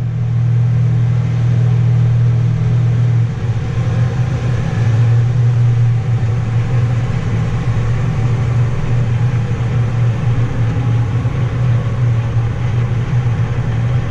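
Vehicle engine running steadily, a loud low drone that turns a little rougher and more uneven about three seconds in.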